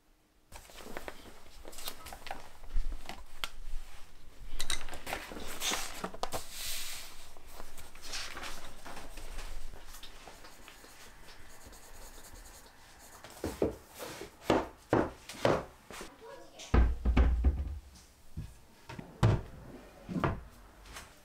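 Lift-up cabinet doors of a Desker bookshelf being opened and shut: a string of knocks and bumps in the second half, with one heavy thump among them. Before that comes a stretch of lighter rustling and handling noise.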